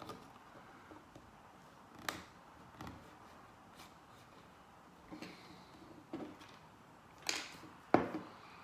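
Scattered light clicks and scrapes of plastic pry tools working at the seam of an iPod Classic's metal back case, with a sharper knock near the end.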